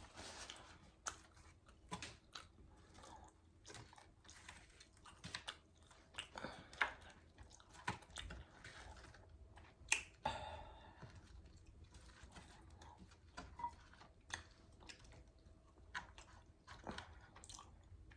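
A person chewing and biting into flour-dredged fried chicken wings, close to the microphone: faint, irregular crunches and mouth clicks.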